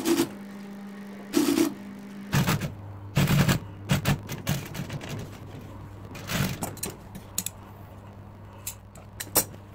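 Seiko industrial sewing machine stitching through vinyl in short bursts of rapid needle strokes over a steady motor hum, then a couple of sharp snips near the end as the thread is cut with scissors.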